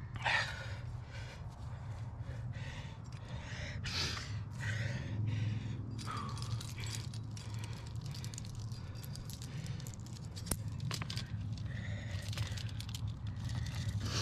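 Clinking and rattling of a trad climbing rack, carabiners and cams knocking together on the harness, with many sharp clicks in the second half. Hard breathing of the climber can be heard early on.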